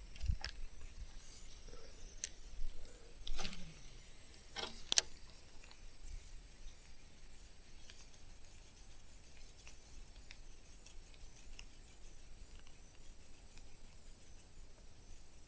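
A few sharp clicks and knocks in the first five seconds, then faint background quiet with occasional light ticks.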